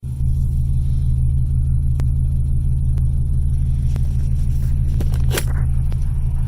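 Steady low rumble of a car's engine and road noise heard inside the cabin, with a few faint clicks and a sharper one about five seconds in.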